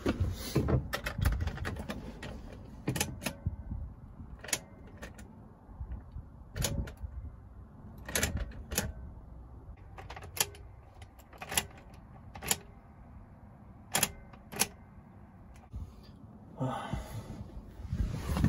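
A series of sharp clicks or taps, irregular and roughly one a second, over a faint low rumble.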